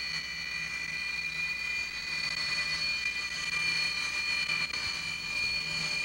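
Twin jet engines of a Sukhoi Su-37 fighter taxiing, a steady high-pitched whine over a rushing hiss.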